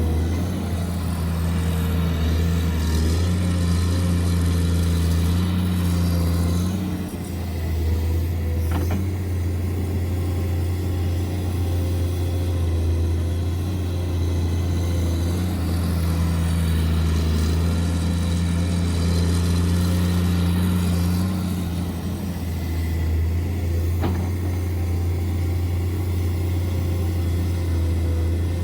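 Radio-controlled model vehicle running with a steady, loud low engine-like hum. A higher tone joins it twice for several seconds, and the level dips briefly around 7 and 22 seconds in.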